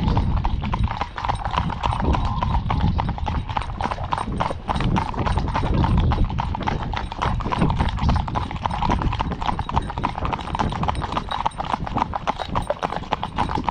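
Horses' hooves clip-clopping in a quick, steady rhythm on a wet tarmac road.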